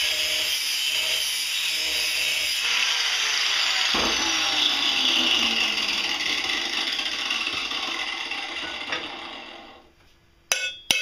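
Electric angle grinder grinding a stainless steel tube held in a vise, its pitch sliding down partway through before it winds down and stops. Near the end, a couple of sharp hammer knocks on the metal.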